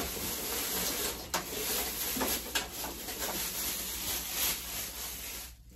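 Plastic packaging rustling and crinkling as a new slow cooker is lifted out of its box, with a few light knocks.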